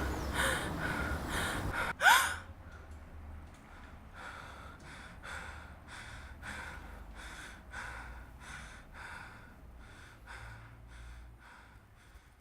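A person gasps sharply about two seconds in, then breathes heavily in quick, even breaths, about two a second, that slowly fade.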